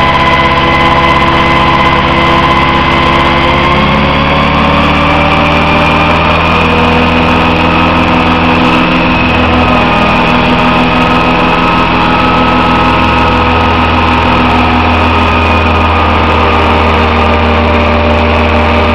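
Radio-controlled scale helicopter running on the ground, its motor, gears and rotor making a steady whine with several tones at once. The pitch rises a little about four seconds in, then holds.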